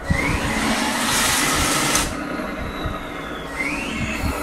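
RC tank sound unit playing its simulated T-90 tank engine sound through the tank's small speaker: a hissing start in the first two seconds, then a steady running engine. A short rising chirp comes at the start and again near the end.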